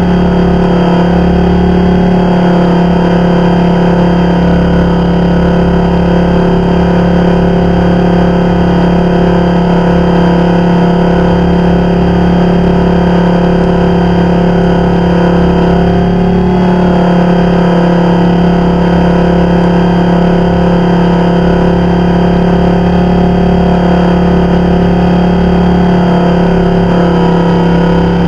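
Blade 400 electric RC helicopter's motor and rotor, heard from a camera slung under its landing gear: a loud, steady hum and whine, with a brief drop in pitch about halfway through.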